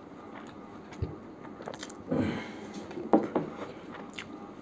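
Close-up eating sounds of people eating mutton biryani with their hands: chewing, and fingers working the rice on the plates. A few light knocks, the sharpest about three seconds in.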